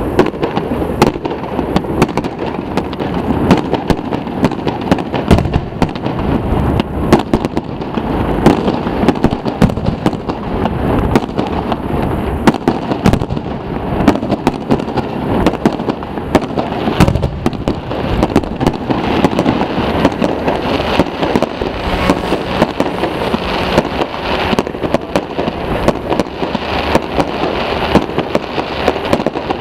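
Fireworks display: aerial shells and comets going off in a dense, continuous barrage of bangs and crackle, with no pause.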